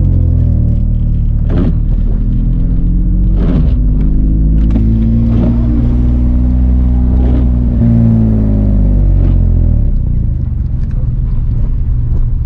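Nissan 350Z's 3.5-litre V6 running at steady, moderate revs after a drift run, the engine note dropping slightly about ten seconds in. A brief sound recurs about every two seconds over it.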